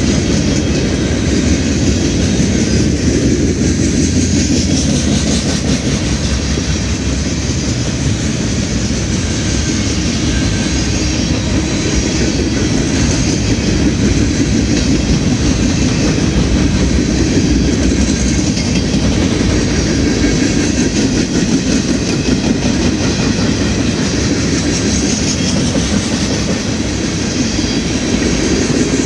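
Norfolk Southern freight train's cars rolling past close by: boxcars, covered hoppers and tank cars. A steady rumble, with the wheels clicking over the rail joints.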